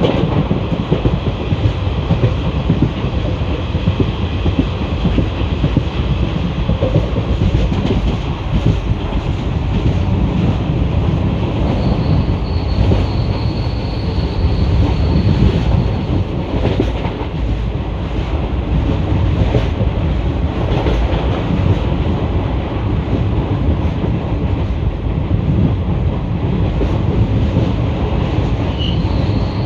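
ICF passenger coach of an Indian express train running on the track in a ghat section, heard from the coach window: a steady heavy rolling rumble of wheels on rail. A thin high wheel squeal comes in from about twelve to sixteen seconds in and again near the end, typical of wheels on a curve.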